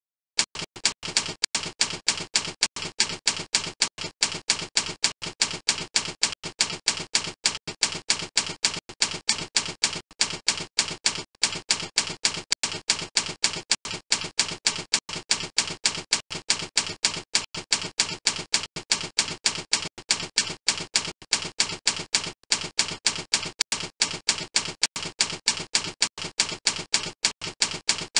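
Typewriter keystroke sound effect: a steady run of sharp key clicks, about four or five a second, accompanying text being typed on screen.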